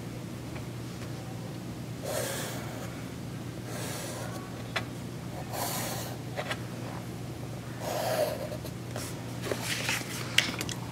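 Pencil drawn along the edges of a cardstock template on sketchbook paper: four short scratchy strokes about two seconds apart, one for each side of the rectangle.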